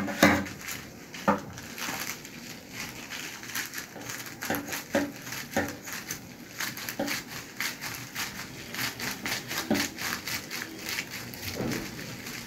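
Plastic courier mailer crinkling and crackling as it is handled and cut open with scissors, an irregular run of crackles with a few louder sharp clicks.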